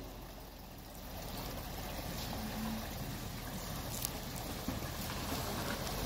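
River water rushing steadily, with the low running of a Ford F-250 pickup's engine underneath as the truck eases into the river; two faint clicks in the middle.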